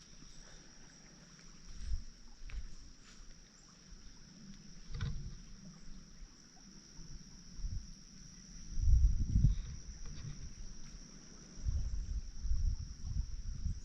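Irregular low rumbling gusts of wind buffeting the microphone, strongest a little past the middle, over a thin steady high-pitched whine.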